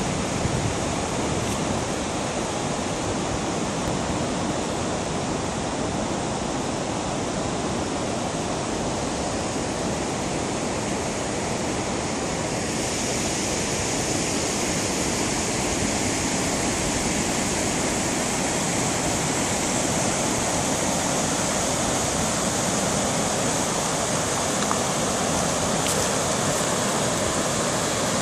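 River water rushing steadily over a shallow, stony riffle, a continuous even rush. About halfway through it turns brighter and hissier and stays so.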